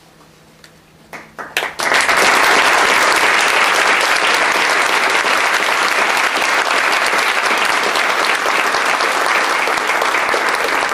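Audience applause: a few scattered claps about a second in, quickly swelling into steady, dense clapping from the whole crowd.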